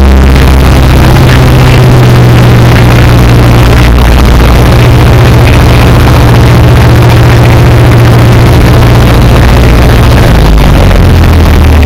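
Piper Super Cub's piston engine and propeller, heard loud from inside the cabin as a steady, unbroken drone in level cruise flight.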